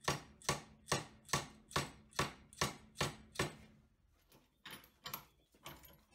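Lead face of a dead blow hammer striking an aluminium bar held in a vise, bending it slowly at a V-notch: nine evenly spaced blows, about two a second, stopping after about three and a half seconds. A few faint clicks follow.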